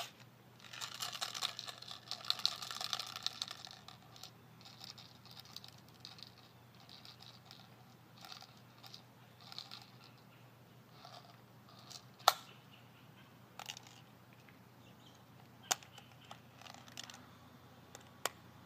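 An airsoft magazine being handled and reloaded with BBs: a light rattle of small clicks for the first few seconds, then scattered small clicks with a few sharp single clicks, the loudest about twelve and sixteen seconds in.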